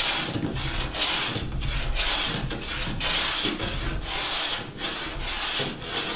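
Sharp hand plane shaving the square edge of a plywood bottom sheet down level with the chine, in repeated strokes a little under one a second.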